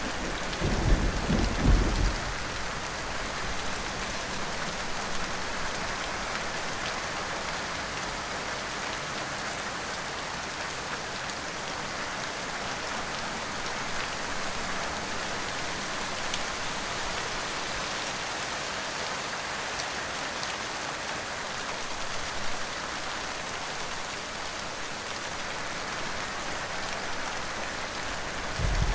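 Steady heavy rain with thunder: a low roll of thunder in the first two seconds, and another beginning to rumble right at the end.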